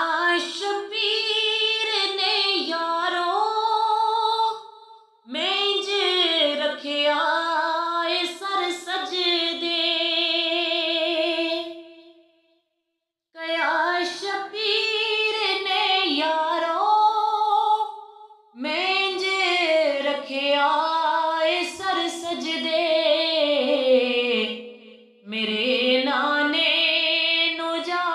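A woman singing a naat unaccompanied, in long phrases of gliding, ornamented pitch, broken by short pauses for breath.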